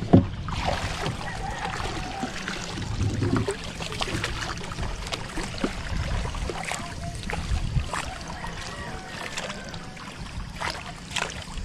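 Water splashing and lapping around a small wooden outrigger boat and its bamboo outrigger poles as the boat moves, with scattered small knocks and drips.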